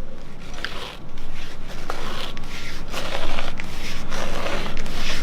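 Tyre lever sliding around a bicycle wheel rim, scraping with scattered clicks as it lifts the tyre bead off the rim.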